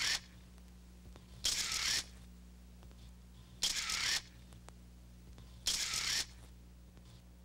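Single-lens reflex camera shutter firing with its film winding on: a sharp, half-second whirring click, three times about two seconds apart. A steady low hum runs underneath.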